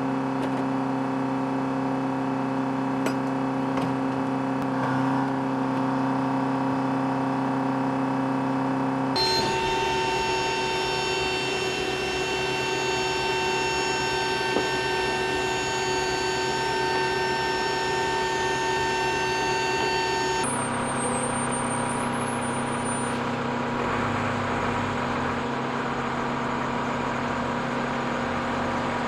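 Steady engine drone: a low hum under several held whining tones, with no rise or fall. The mix of tones changes abruptly twice, about 9 and 20 seconds in.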